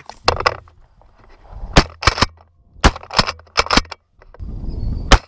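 A rapid string of shotgun shots, about eight in five seconds, some coming in quick pairs fired by hunters shooting at passing doves.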